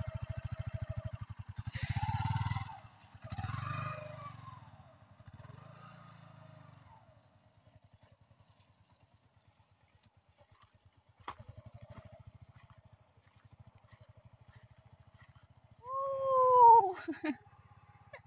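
Yamaha sport motorcycle engine running with a quick even beat, revving up twice as it pulls away, fading as it rides off, then growing louder again as it comes back. Near the end a loud falling call rises over the engine.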